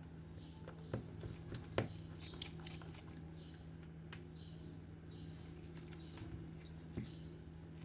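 Light, irregular clicks and taps with short soft scrapes, typical of small hand tools working on a phone's parts during a screen repair, over a steady low hum; the sharpest clicks come a little under two seconds in.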